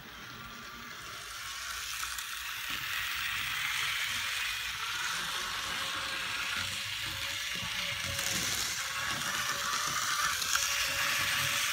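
N-scale Kato 2-8-2 model steam locomotive running on its track: a steady whirring rattle of motor, gears and wheels on the rails with a faint steady whine, growing louder over the first couple of seconds.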